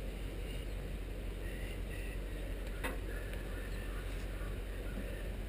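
Steady low hum under faint rustling of tow cables being handled by hand, with one sharp click about three seconds in.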